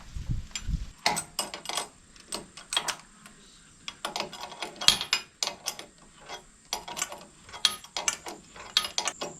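Irregular sharp metallic clicks and clinks of hand tools and metal parts being handled while riser bolts are fitted, with short pauses between clusters.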